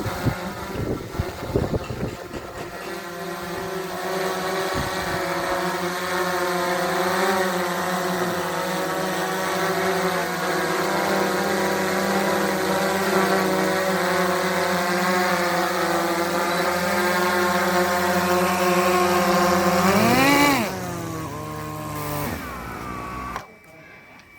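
Drone's propeller motors running with a steady, slightly wavering multi-tone whine. About twenty seconds in the pitch rises sharply, then the motors wind down and stop. A few knocks come in the first couple of seconds.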